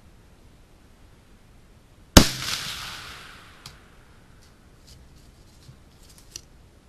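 A single shot from a Ruger American bolt-action rifle in .308 Winchester, the report echoing and dying away over about a second and a half. A few light clicks follow as the bolt is worked.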